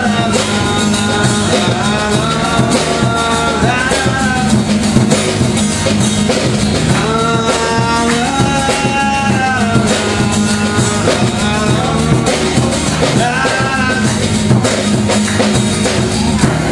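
Live acoustic band playing a folk-rock song: acoustic guitar strumming and a drum kit keeping a steady beat, with a wordless melody of held, sliding notes over the top.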